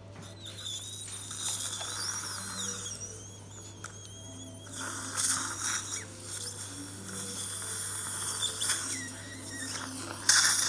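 Dental surgical suction tip hissing and slurping blood and saliva from the mouth, in uneven surges. A thin whistle wavers in pitch in the first few seconds, and there is a loud slurp near the end.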